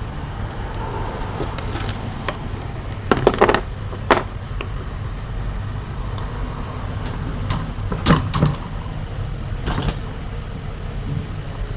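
Table fan being handled for repair: a few sharp clicks and knocks, two about three seconds in, one at four seconds, two around eight seconds and one near ten, over a steady low hum.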